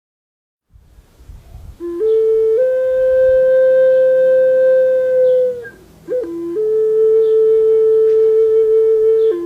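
Handmade replica of a pre-Hispanic Mexican wind instrument blown in long, steady, flute-like notes. After a breathy start, one note steps up slightly and holds for about three seconds. After a short break, a second, slightly lower note holds to the end.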